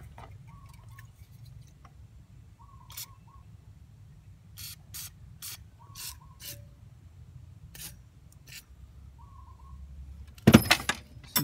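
WD-40 aerosol can sprayed through its straw in a series of short hissing squirts, several in quick succession in the middle, with one loud knock near the end.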